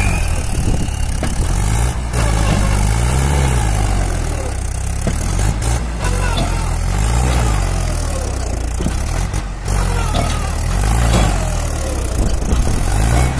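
Mahindra 575 tractor's four-cylinder diesel engine revving up and down over and over under heavy load, straining to pull a loaded trailer out of a pit.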